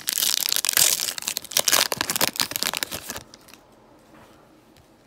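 Foil Panini Prizm trading-card pack wrapper being torn open and crinkled by hand, a dense crackling that stops about three seconds in.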